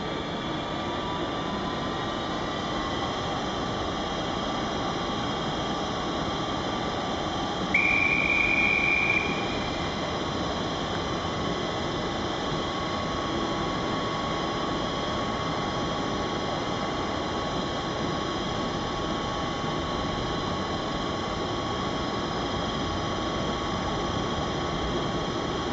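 Steady hum and rush of a railway station platform, with an electric locomotive-hauled train standing at the platform. A single high, steady whistle tone sounds for about a second and a half some eight seconds in.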